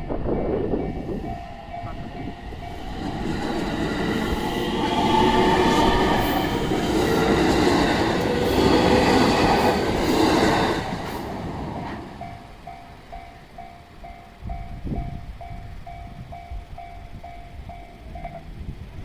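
A train running past over a level crossing: its rumble swells over a few seconds, peaks and fades after about eight seconds. The crossing's alarm bell rings in rapid, even pulses around it and stops near the end.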